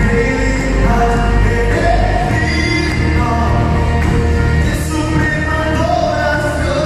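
Live worship band with guitars playing a Spanish-language praise song, with a sung melody and a strong bass underneath, heard as it sounds in the room.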